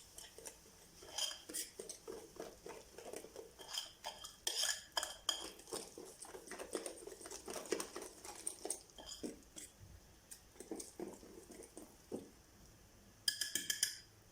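A metal utensil clinking and scraping against a bowl while semolina basbousa batter is being handled, in a run of irregular knocks with brief ringing tones. A quick burst of ringing taps comes near the end.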